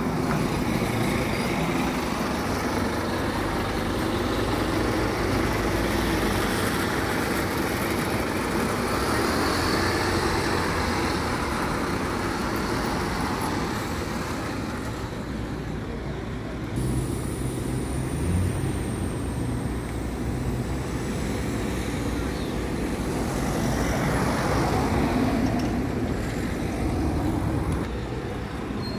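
Road traffic and bus engines: a single-decker bus drives past, then vehicles go by on the street, with a steady rumble throughout.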